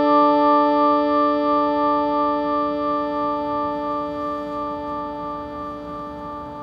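A struck bell-like metal instrument ringing on after a single strike, its many tones fading slowly, with one upper tone wavering in a steady beat.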